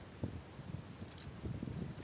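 Wind buffeting the microphone in an uneven low rumble, with a short tick about a second in.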